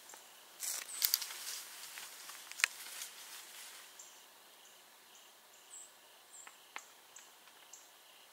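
Faint outdoor stillness with scattered soft rustles and cracks over the first few seconds, the sharpest about two and a half seconds in. From about halfway through, an insect chirps steadily, about two short high chirps a second.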